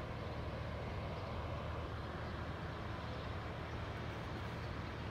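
Steady low drone of a cargo ship's diesel engine as the ship moves upriver.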